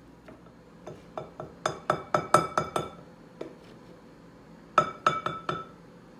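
Spatula and blender jar knocking against the rim of a glass mixing bowl while a thick mixture is scraped and tapped off, each knock a ringing glass clink. A quick run of about nine clinks starts about a second in, and four more come near the end.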